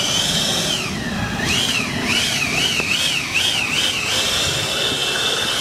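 Electric ducted-fan motor of a homemade RC jet boat running at speed: a high whine that rises, dips, wavers up and down in pitch about five times around the middle, then holds steady, over a rushing hiss of air and spray.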